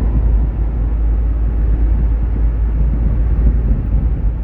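Car cabin noise while driving: steady low engine and road rumble heard from inside the moving car.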